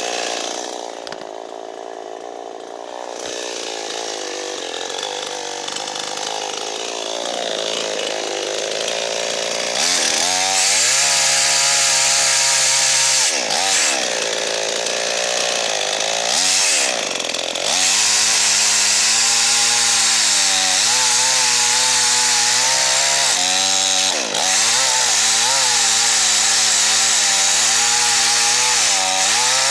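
Gas chainsaw idling low, then revved to full throttle about ten seconds in, dropping back briefly a few times before running on at high speed with a wavering pitch, as when cutting into dead standing ash.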